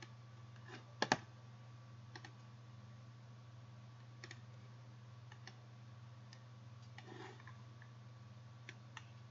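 Scattered clicks of a computer mouse, with a louder double click about a second in, over a steady low hum.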